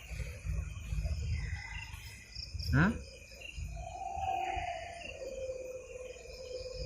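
Crickets chirring steadily in a constant high-pitched insect chorus, with a low rumble underneath. About three seconds in, a short sharp sound sweeps quickly upward in pitch and is the loudest thing heard; a fainter tone glides slowly down a little later.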